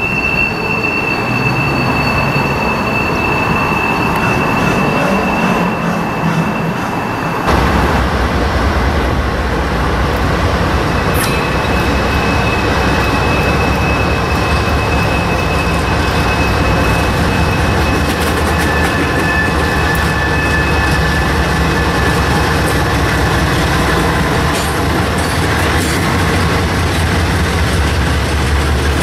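Freight train wheels squealing as a train of tank cars rolls past. About a quarter of the way in, the sound changes abruptly to a pair of Norfolk Southern GE diesel locomotives approaching: a steady, deep engine drone with wheel flanges squealing on the curve.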